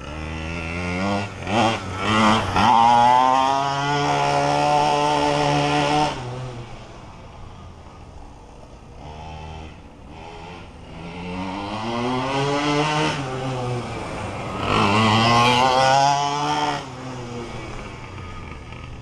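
Two-stroke gas engine of a 1/5-scale Primal RC Raminator monster truck revving. It gives a few quick blips, then two long runs at high revs with lower running in between.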